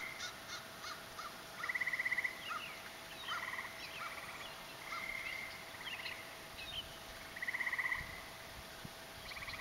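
Chipping sparrow giving short, rapid dry trills, repeated every second or two, with sharp chirps and calls between them.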